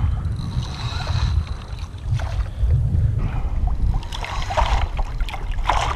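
Wind buffeting the microphone of a hat-mounted camera, with water sloshing against a kayak hull. A few brief rustles come about two, four and a half, and six seconds in.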